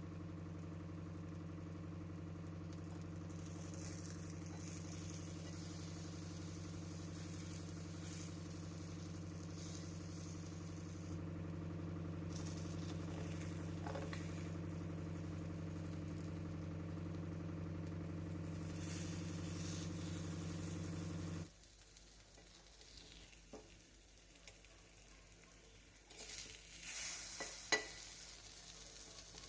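Paniyaram frying in oil and ghee in a nonstick paniyaram pan, a soft sizzle, as the balls are turned one by one with a spoon. A steady low hum runs under it and stops suddenly about two-thirds of the way through. A few light clinks of the spoon on the pan come near the end.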